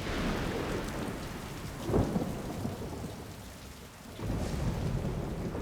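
Thunderstorm: steady heavy rain with a loud thunderclap about two seconds in. The rain eases briefly and swells again past the four-second mark.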